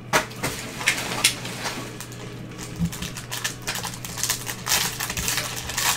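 Foil wrapper of a trading card pack crinkling and tearing as gloved hands rip it open, a run of quick irregular crackles.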